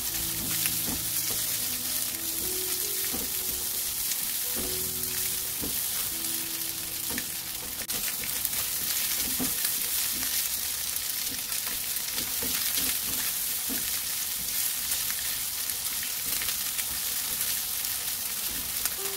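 Diced Spam sizzling steadily in oil in a nonstick frying pan, stirred and pushed around with a silicone spatula, with occasional light taps of the spatula on the pan.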